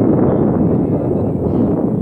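Wind buffeting the phone's microphone, a loud, steady low rumble.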